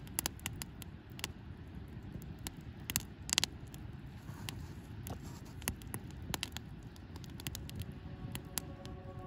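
Outdoor ambience: a low steady rumble with scattered sharp clicks and scrapes, a cluster of louder ones about three seconds in. Acoustic guitar music fades in near the end.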